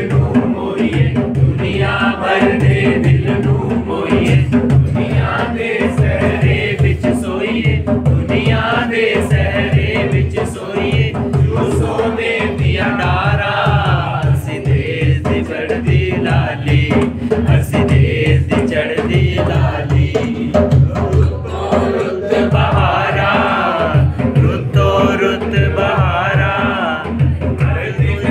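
Music: an upbeat Punjabi song with a steady, fast drum beat and chanting voices.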